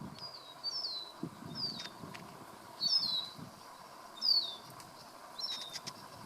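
A bird repeatedly giving short, high, down-slurred chirps, about six calls with some doubled, at irregular gaps over a steady background hum. A few soft low thuds fall between them.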